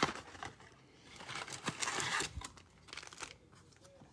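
A cardboard blaster box snapped open with a sharp click, then foil-wrapped trading card packs crinkling as they are pulled out and handled, loudest about two seconds in, with a few light taps near the end.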